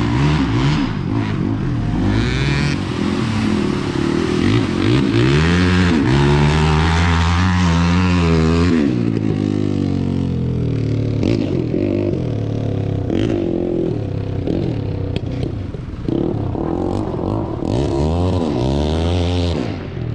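Diesel 4x4 engine revving up and down again and again as it pulls through mud on street tyres, with a long hard rev in the middle and another run of revs near the end.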